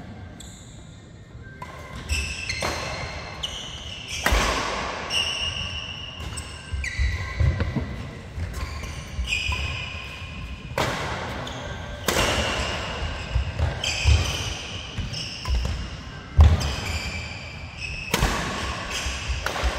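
Badminton doubles rally: rackets striking the shuttlecock in a string of sharp cracks, with shoes squeaking briefly on the court surface and footfalls thudding, all ringing in a large hall.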